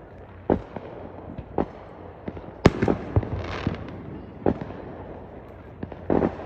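Neighborhood fireworks going off: irregular sharp bangs and booms about a second apart. The loudest, sharpest bang comes near the middle, followed by a quick cluster of smaller pops.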